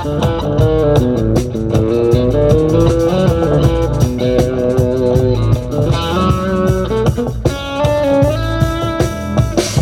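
Live band playing an instrumental passage of a reggae jam, led by an electric guitar over bass and drums.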